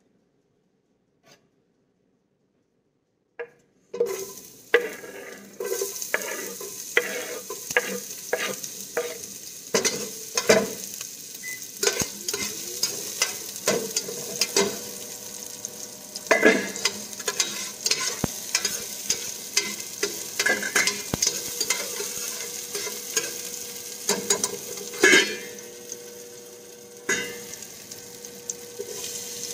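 Diced onion sizzling in hot oil in a stainless steel pot, with a metal spatula clinking and scraping against the pot as it is stirred. The sizzle starts suddenly about four seconds in, after near silence.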